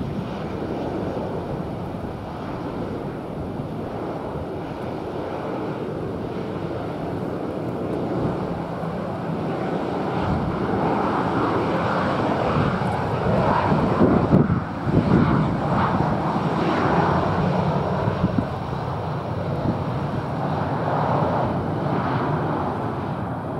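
Jet airliner's engines passing: a noisy rumble that builds, is loudest about halfway through, then slowly fades. Strong wind buffets the microphone.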